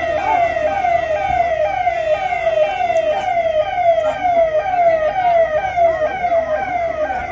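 Police vehicle's electronic siren sounding in a fast repeating cycle, each sweep falling in pitch, about two a second.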